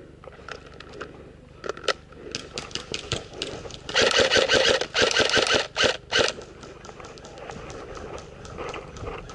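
Airsoft guns firing: scattered single shots and short strings of rapid clicks, with two loud rapid-fire bursts about four to six seconds in.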